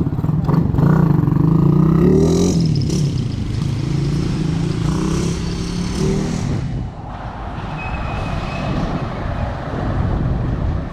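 Motorcycle engine running close by, revving up and down about two seconds in. Near seven seconds it gives way to a steadier engine-and-traffic hum.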